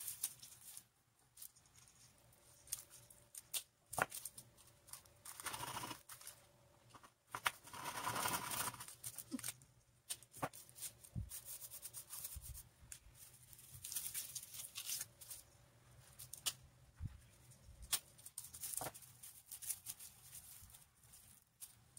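Scissors snipping and materials rustling as preserved flowers are cut and handled: scattered sharp clicks and short rustles, with a longer rustle around the middle.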